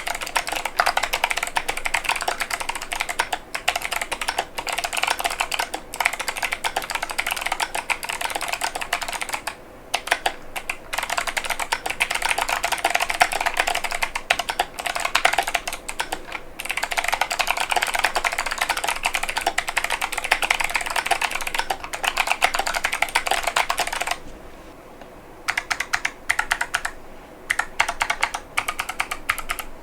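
Fast continuous typing on a mechanical keyboard with Kailh Box Pink clicky switches and PBT Cherry-profile keycaps: rapid crisp key clicks. The typing breaks off briefly a few times, with a longer pause of about a second and a half past the middle.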